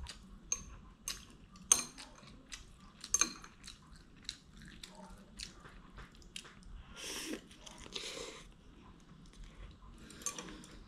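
Close-up sounds of a person eating instant noodles: many small wet clicks of chewing, with two longer slurps about seven and eight seconds in.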